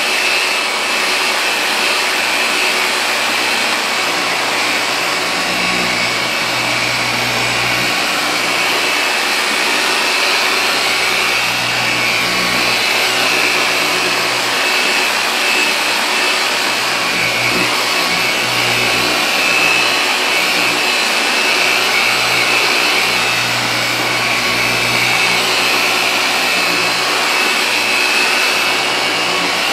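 Electric car polisher with a microfiber cutting pad running steadily against painted bodywork, a continuous motor whine. It is the cutting stage of paint correction, the pad working McKee's 37 Fast Compound into the paint to take out scratches and swirl marks.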